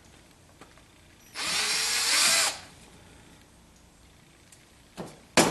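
Power drill with a 1/8-inch bit drilling out a hole for about a second, its motor rising in pitch as it spins up. A sharp click follows near the end.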